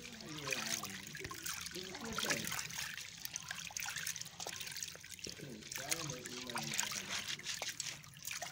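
Water trickling and sloshing with many small ticks as soaked, crushed corn is washed by hand in a basin, the grains rubbed and swished to loosen the chaff.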